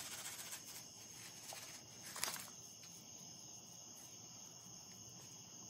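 Faint rustling and crinkling of a foil seasoning pouch as dry rub is shaken out over salmon fillets, with a sharper crinkle about two seconds in. A steady high-pitched drone continues behind it.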